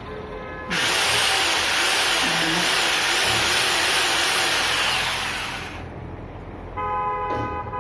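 2-26 type rotary hammer with a flat chisel bit, its motor running steadily for about five seconds with a high-pitched whine, then winding down.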